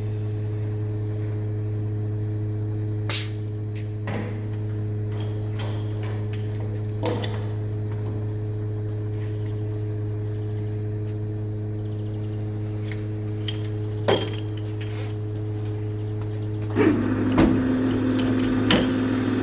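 A vehicle engine idling steadily at an even pitch, most likely the milk collection lorry's, with a few sharp knocks. Near the end a second, louder engine note joins in.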